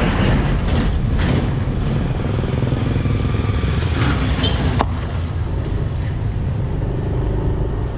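Motorcycle engine running steadily at low road speed, heard from the rider's own bike, with a motorized three-wheeler cart passing close by around four seconds in and a few short sharp clicks.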